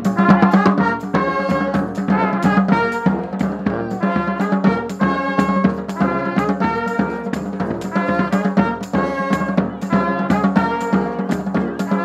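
Street brass band playing live: a sousaphone bass line, bass drums struck with mallets, and saxophone and other horns over a steady, driving beat.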